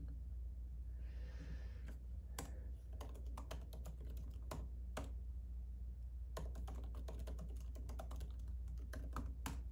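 Typing on a MacBook Air's built-in keyboard: quick runs of key clicks as a name and password are entered, over a steady low hum.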